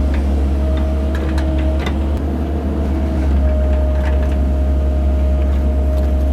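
Cat 308 mini excavator's diesel engine running steadily under load, with a steady hydraulic whine over it. A few light clicks and knocks come through as the machine works.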